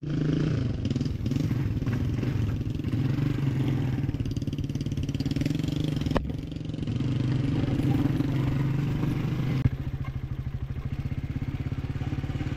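Motorcycle engine running under way, a steady mid-pitched engine note; about ten seconds in it settles into a more even, pulsing beat.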